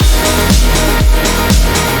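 Instrumental rap type beat in a sad alternative-rock style: a kick drum about twice a second under a steady bass line, full chords and crisp hi-hat and snare hits.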